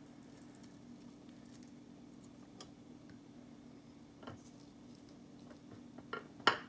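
Faint scattered clicks and taps of a red onion being handled and cut at the kitchen counter, over a steady low hum, with a few sharper knocks near the end.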